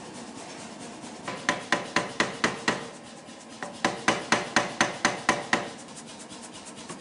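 Rapid hammer blows on a glowing steel bar being forged, about four a second: a run of six, a short pause, then about nine more, over a steady background noise.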